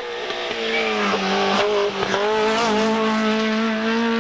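Peugeot 205 Groupe F rally car's four-cylinder engine held at high revs at full attack on a stage. The pitch dips briefly about one and two seconds in, then pulls high again.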